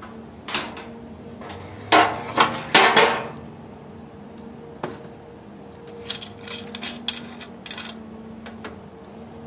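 Clanks and knocks of a red fuel can and a vintage Coleman camp stove being handled on a metal-topped table, loudest a few sharp clanks about two to three seconds in. Near the end, a run of lighter clicks and scrapes as the can's brass spout is fitted into the stove's fuel tank filler, ready to fill it with diesel.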